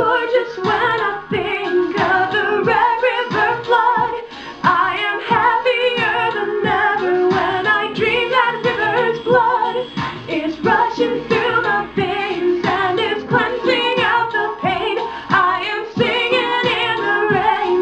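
A woman singing a song in a wavering, vibrato voice over accompaniment with a steady beat.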